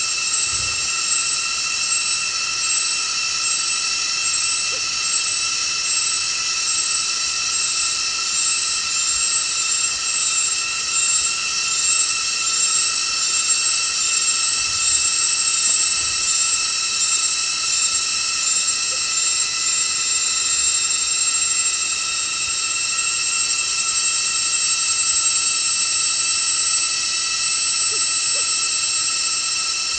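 Steady, high-pitched drone of forest insects calling together, a chorus of several sustained tones with a fast pulsing in the highest notes that fades out about halfway through.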